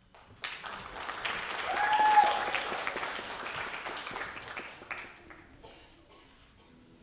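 Audience applauding: the clapping starts about half a second in, swells to its loudest around two seconds and dies away by about six seconds in, with one brief cheer rising over it about two seconds in.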